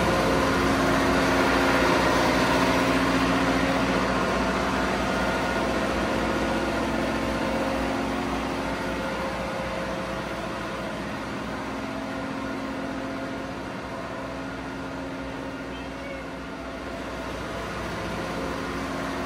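Steady drone of diesel machinery running in a tugboat's engine room, a constant hum with several held tones over a low rumble, growing gradually fainter.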